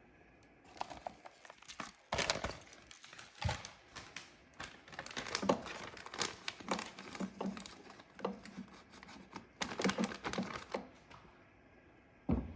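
Plastic vacuum-seal bag crinkling and rustling in irregular spurts as fresh cilantro is packed into it, with a few sharp knocks in between.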